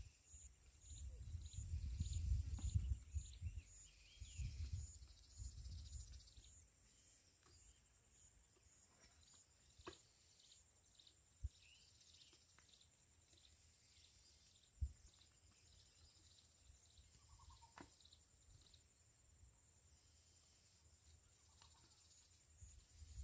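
Faint outdoor ambience: insects keep up a steady high-pitched buzzing, with a low rumbling noise for the first six seconds or so. A few soft clicks and a brief bird chirp come later.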